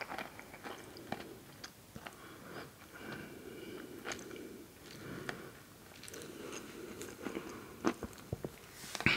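Close-miked chewing and mouth sounds of a person eating, with scattered small wet clicks and crackles.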